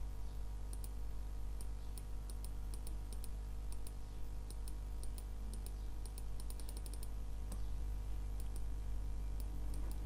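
Computer mouse clicking, a string of light clicks at irregular intervals with a quick run about seven seconds in, over a steady low hum.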